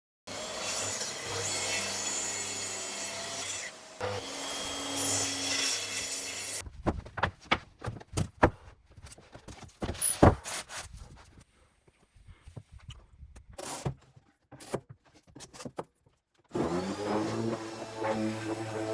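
Woodworking on pine boards: a power tool runs steadily for about six seconds, then a scatter of sharp wooden knocks and clatters follows, and a new steady motor-like sound starts near the end.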